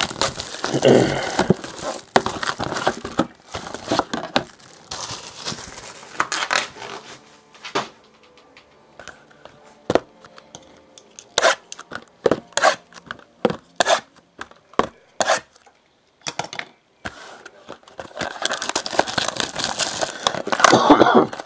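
A sealed box of trading cards being cut and torn open by hand: cardboard and wrapping tearing and plastic crinkling, with a run of sharp clicks and taps in the middle and more crinkling near the end.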